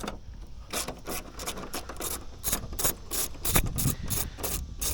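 Short rasping, scraping strokes of a hand tool working a damaged metal part, roughly three to four a second and uneven.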